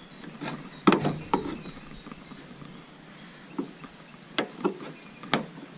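Screwdriver prying plastic push clips on a Dodge Charger's front bumper cover. It gives a handful of scattered sharp clicks and knocks, the loudest about a second in.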